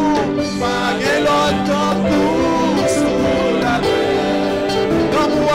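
Live gospel worship music: voices singing over steady held instrumental chords.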